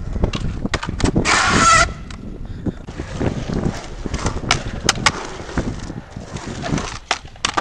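Skateboard rolling on the concrete of a skatepark bowl, with a rough rumble and repeated sharp clacks of the wheels and trucks. About a second in comes a loud, pitched squeal lasting under a second.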